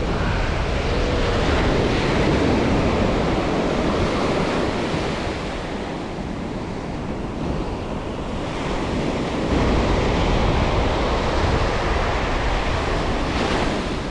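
Surf breaking on the shore, a steady rush that swells and eases over several seconds, with wind buffeting the microphone.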